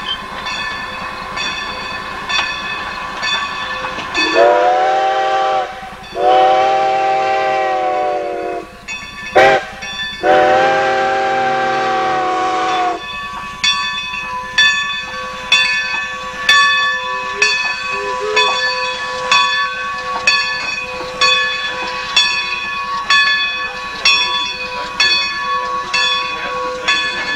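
Steam locomotive No. 90 blowing its steam whistle in the grade-crossing pattern: two long blasts, one short, one long. Around the whistle, the train's wheels click steadily over the rail joints as the engine and coaches pass close by.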